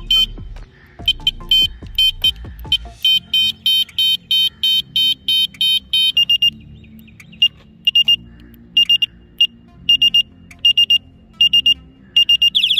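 Electronic horn of a bicycle speaker light (a USB-rechargeable front light with a built-in speaker) sounding high, repeated electronic beeps from its handlebar horn switch. It beeps about four times a second for the first six seconds, then changes to a different pattern of short beep groups with pauses, another of the light's five horn sounds.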